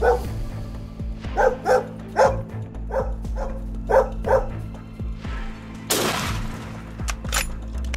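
Dog barking in short barks, several in quick pairs, over a steady music bed. A brief burst of rushing noise follows about six seconds in.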